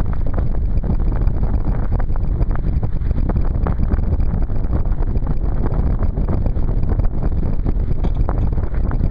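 Steady wind rumble on the microphone mixed with water rushing and splashing against a Sunfish sailboat's hull as it sails through choppy water.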